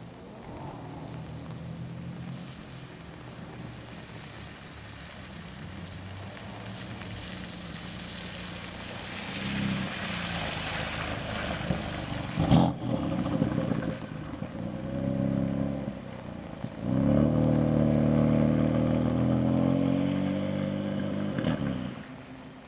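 BMW M4's twin-turbo straight-six driving off on a wet road: a low engine note and the hiss of tyres through standing water as it passes, a single sharp crack about halfway through, then a loud, sustained burst of acceleration near the end that cuts off suddenly.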